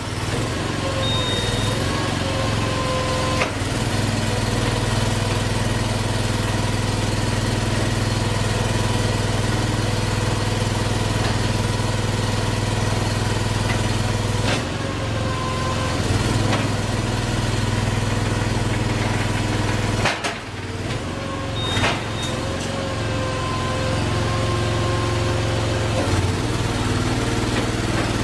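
Miniature tracked car-recovery machine running steadily as its lifting arms slide under a parked car, a constant engine hum with faint whining tones that shift now and then. The hum dips briefly about two-thirds of the way through, with a couple of sharp clicks around it.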